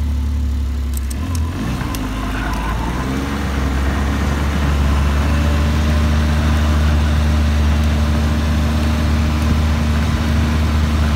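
Snowmobile engine running while riding over packed snow; its note shifts between one and three seconds in, then gets louder and holds steady.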